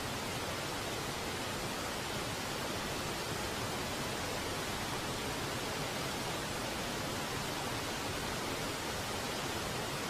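Waterfall: falling water making a steady, even rush.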